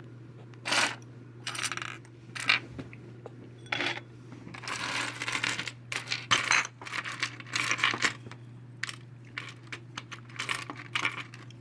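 Small tiny figurines clinking and clattering against each other as they are picked through, sorted and dropped into a container, in irregular bursts of clicks.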